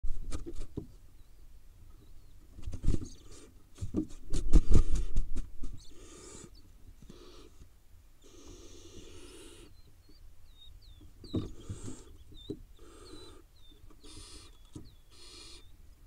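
Barn owl nestlings flapping and jumping in a nest box, with several loud knocks and thumps of wings and feet against the box in the first few seconds. Then the owlets give repeated rasping, hiss-like begging calls, each about half a second to a second long, with faint short chirps between them.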